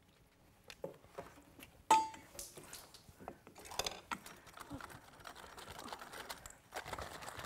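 A sharp metallic clink with a brief ring about two seconds in, then a wire whisk rapidly stirring and scraping around the inside of a stainless steel mixing bowl.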